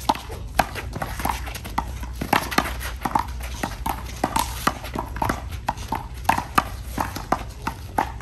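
Handball rally: a rubber handball smacking off players' gloved hands, the wall and the court in quick, irregular sharp claps, several a second.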